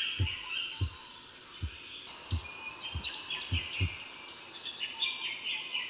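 Rainforest ambience: birds and insects chirping high and busily, over a run of soft, low thuds roughly every two-thirds of a second.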